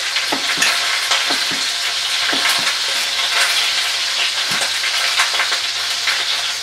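Oil sizzling steadily as a wild boar leg sears in a roasting pan at mild heat, with scattered sharp clicks and pops over the hiss, among them knife chops on a wooden cutting board at the start.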